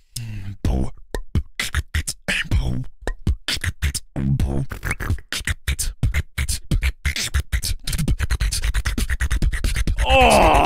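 Freestyle beatboxing: a fast beat of mouth-made kicks, snares and clicks that thickens into a dense click roll in the second half, with a sung tone bending in pitch near the end.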